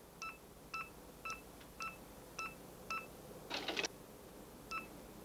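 Sonic pen digitiser beeping with each touch as joint positions are entered: short, even electronic beeps, roughly two a second. A brief rasping burst breaks in about three and a half seconds in.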